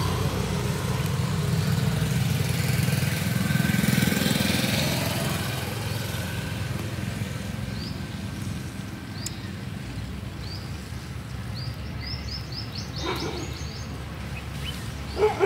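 A motor vehicle's engine running nearby, a low rumble that swells about four seconds in and then slowly fades. In the second half a small bird gives short, quick rising chirps.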